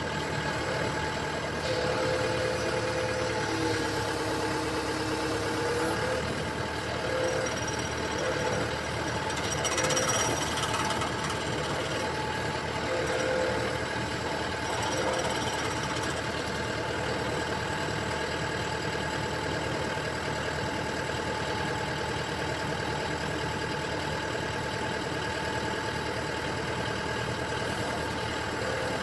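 Komatsu hydraulic excavator running steadily under the swing, with a whining tone that comes and goes during the first half. This is the abnormal noise being traced to the excavator's swivel joint.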